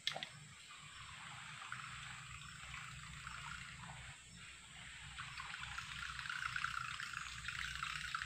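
A fishing lure being reeled back across the surface of still swamp water: a steady trickling splash that grows louder in the second half as it comes in. There is a sharp click right at the start.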